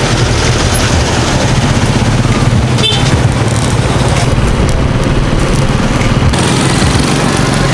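A motor vehicle engine running close by, a steady low hum amid street noise.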